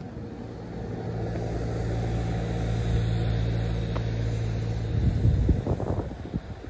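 A road vehicle's engine running close by with a steady low hum that swells to a peak in the middle. About five seconds in the hum stops and gives way to irregular low rumbling.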